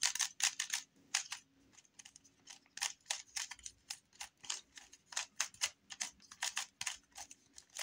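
GAN 356 Air Magnetic 3x3 speedcube being turned by hand: quick plastic clicks and clacks as its layers turn, several a second with short pauses. A new cube, turning super smooth out of the box.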